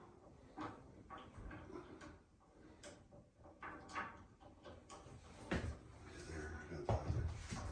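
Clicks and knocks of metal hardware being handled and fitted on a frameless glass shower barn door, with two louder knocks about five and a half and seven seconds in.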